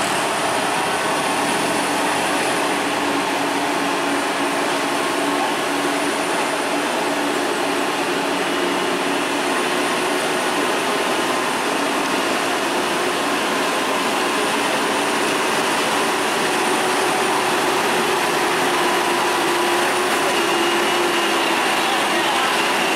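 Diesel engine of a Scania heavy tractor unit pulling a loaded lowboy trailer up a steep hairpin, running steadily under load, its pitch rising slightly near the end.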